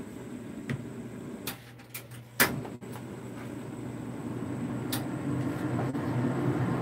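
Gas stove burner running under an empty metal wok, a steady low rush that grows louder through the second half. A few sharp clicks and one louder knock about two and a half seconds in as the wok shifts on the burner grate.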